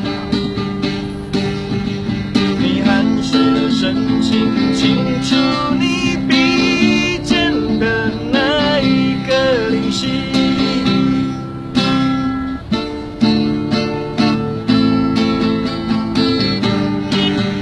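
Acoustic guitar played solo between sung lines, a run of picked and strummed chords ringing on steadily.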